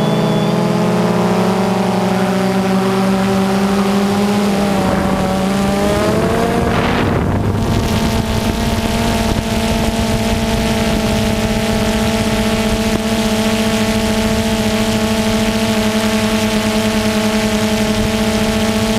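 DJI Phantom 2 quadcopter's electric motors and propellers whining on the onboard camera's microphone. The pitch wavers and glides about five to seven seconds in as the drone changes throttle, then holds steady.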